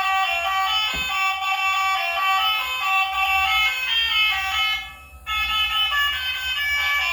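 A melody of steady electronic tones stepping from note to note, with a short break about five seconds in.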